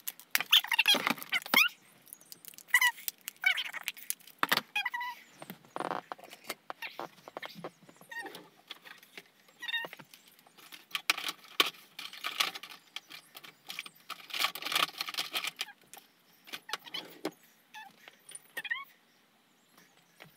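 Small objects being rummaged through and handled: scattered knocks, clatters and rattles with stretches of rustling, and a few short squeaks.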